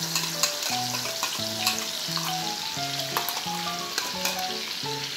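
Wet red chilli paste sizzling as it goes into hot mustard oil and fried garlic in a kadhai, with a steel spoon scraping and clicking against the bowl and pan to get the last of the paste out.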